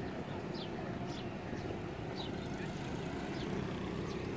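Steady low outdoor rumble with a bird's short, high, falling chirps repeating about once a second.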